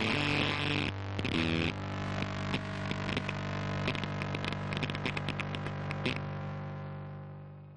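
Background music ending: a low held chord under rapid percussion hits, then from about six seconds in the chord rings on alone and fades away.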